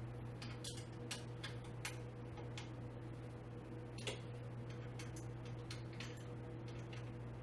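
Light, irregularly spaced clicks and ticks, about a dozen over several seconds, from hand tools and bolts being handled during chair assembly, over a steady low hum.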